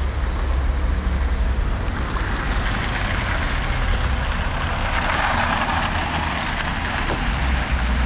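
Road traffic: a car driving by, swelling about five seconds in, over a steady low rumble.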